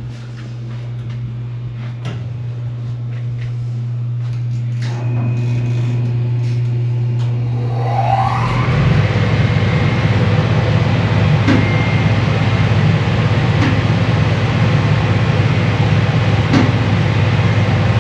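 Steady low hum of a phase converter running, with scattered ticks. About eight seconds in, a shot blaster's motor spins up with a short rising whine and the machine starts blasting the engine block: a loud, steady rushing noise that carries on to the end.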